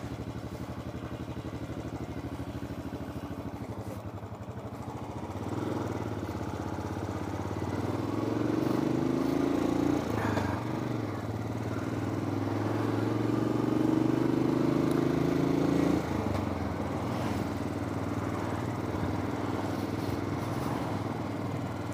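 Motorcycle engine heard from on the bike, running steadily at first, then its revs climbing twice, each climb dropping back sharply, before it settles to a steady cruise.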